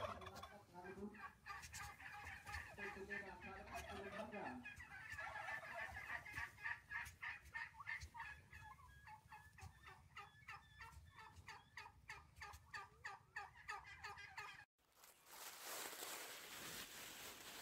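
A group of baby poultry peeping, a rapid run of short high calls, with lower calls from a bigger bird over the first four seconds or so. About fifteen seconds in the sound cuts off and a faint outdoor hiss takes over.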